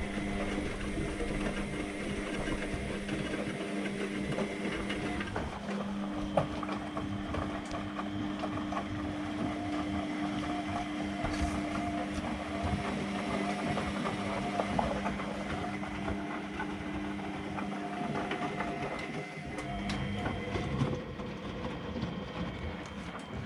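AEG front-loading washing machine running mid-cycle: a steady motor hum over a rumble from the turning drum, the hum changing pitch about six seconds in.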